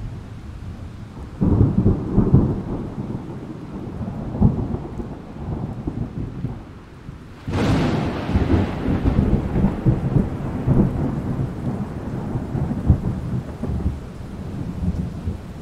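Thunder with rain falling. A rumble starts abruptly about a second and a half in and rolls on. About halfway through, a sharp, close crack breaks into long, low rumbling.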